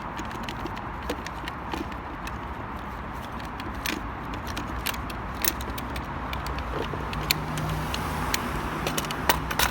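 Scattered sharp clicks and light metallic rattles as the spring clips on a car's airbox are unclipped and the airbox lid is handled, over a steady low background rumble.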